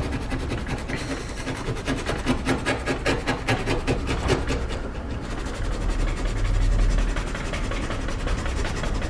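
Quick, repeated rubbing and scraping strokes on the wooden slats of a bakery bread shelf for about five seconds, as if scrubbing it by hand. They then give way to a softer, rougher rubbing, with a low rumble about six seconds in.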